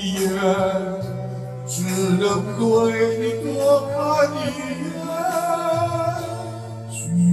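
Slow Chinese pop ballad: a male voice sings the melody over a backing band with steady bass.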